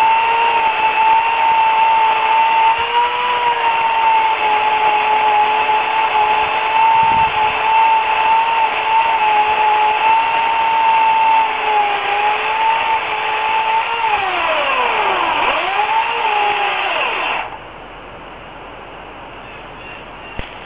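Remington Limb N Trim RM1415A 8-amp electric chainsaw running steadily with a high whine while cutting wood. About 15 seconds in its pitch drops sharply and recovers twice as the chain bogs under load, and the motor stops abruptly a couple of seconds before the end.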